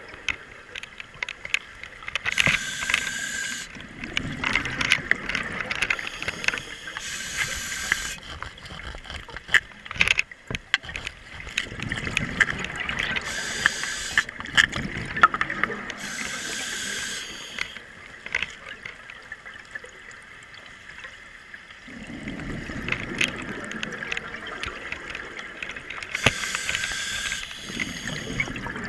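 Scuba diver breathing through a regulator, heard underwater: short hissing inhalations, some with a faint whistle, alternate with bubbling exhalations every few seconds. Scattered sharp clicks run throughout.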